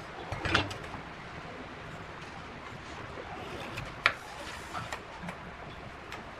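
A few sharp knocks and clicks over a steady low hiss, the loudest about half a second in and another about four seconds in.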